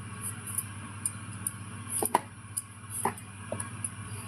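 A mango being peeled: a few light, irregular clicks and small scrapes, over a steady low hum.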